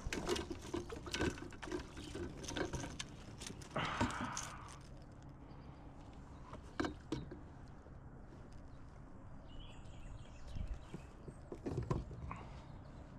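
Scattered light knocks and clicks with a brief rustle about four seconds in: handling a freshly landed fish and fishing gear in a kayak.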